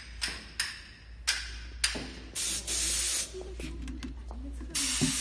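Compressed-air spray gun hissing: a few short puffs, then two bursts of about a second each.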